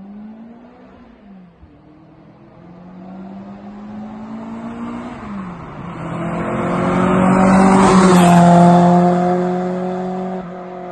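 Toyota AE86 with an HKS sport exhaust accelerating toward and past, its four-cylinder engine note climbing in pitch through the gears with two drops at the upshifts. It is loudest as it goes by about eight seconds in, where the pitch falls, then fades as it drives away.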